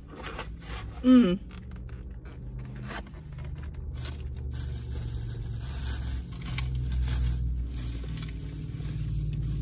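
Styrofoam takeout container being closed and handled: scraping, creaking and clicking, densest in the first four seconds or so, over a low steady hum.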